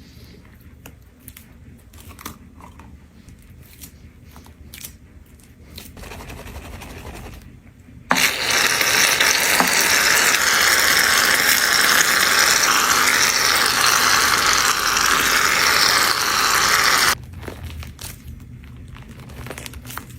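Faint clicks and crackles, then a small motor switched on about eight seconds in, running loudly and steadily for about nine seconds before cutting off suddenly.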